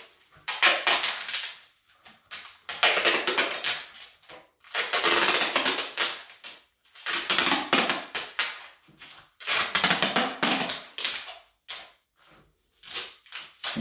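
Duct tape being pulled off the roll and wrapped around a spliced climbing rope, in about six noisy pulls of a second or so each, with short pauses between them.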